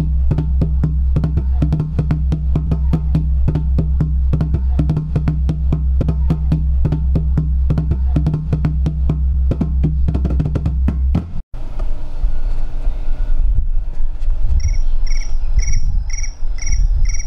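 Background music with a steady drum beat and bass, cutting off abruptly about eleven and a half seconds in. A quieter passage follows, with a high chirp repeated about twice a second near the end.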